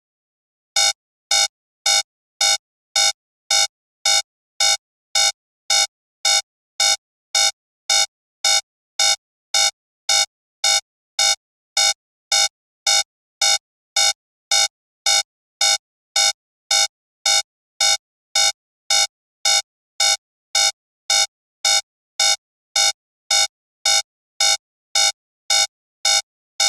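Digital alarm clock alarm going off: short identical electronic beeps repeating evenly, a little over two a second, starting about a second in. It is the signal that the 15-minute countdown has run out.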